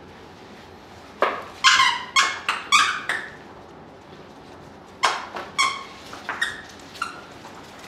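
Husky puppies yipping in play: two bursts of short, high-pitched yips, about five or six each, the first starting about a second in and the second about five seconds in.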